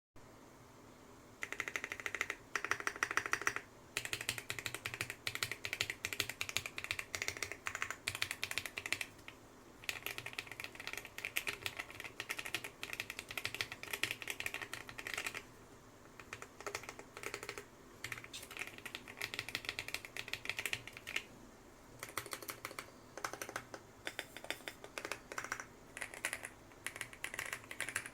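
Custom 65% mechanical keyboard with PBT Cherry-profile keycaps being typed on fast, dense runs of keystroke clacks broken by short pauses.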